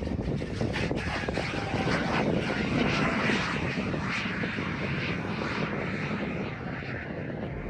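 Twin-engine piston airplane sliding down the runway on its belly with the landing gear up, a continuous rough scraping and grinding of metal on pavement with many small knocks, over the sound of its engines and propellers.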